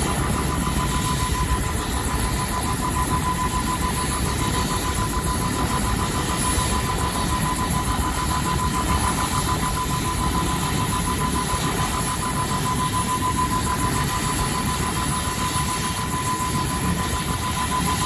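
Turbine helicopter starting up: a steady high turbine whine with a faint pulsing, over a low rumble, while the two-bladed main rotor turns slowly.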